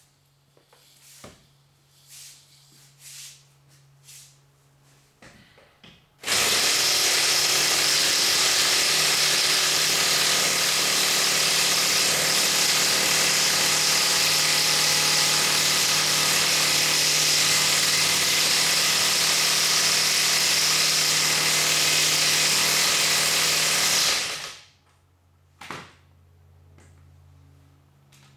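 An electric motor and hydraulic pump running steadily with a constant whine, as on a car lift raising the vehicle. It starts abruptly about six seconds in, runs for about eighteen seconds and cuts off suddenly. A few light knocks come before it.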